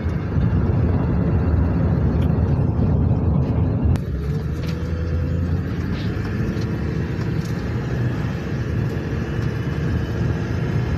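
7.3 Powerstroke V8 turbodiesel running steadily with a deep rumble and faint turbo whistle, the whistle caused by a boost leak letting air escape from the turbo. The sound changes abruptly about four seconds in.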